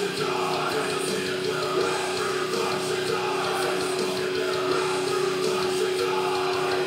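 Rock music playing, with a note held steady through nearly all of it.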